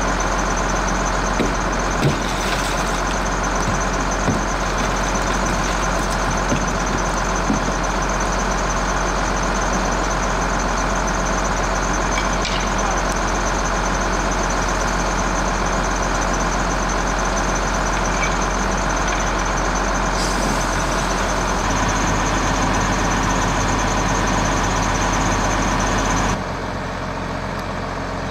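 Fire engine running steadily at the scene, a loud continuous engine drone with a steady hum and hiss, dropping somewhat in level suddenly near the end.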